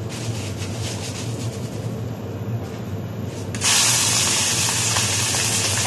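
Blanched pork belly going into a hot pan and sizzling: a loud, steady hiss starts suddenly about three and a half seconds in, over a low hum.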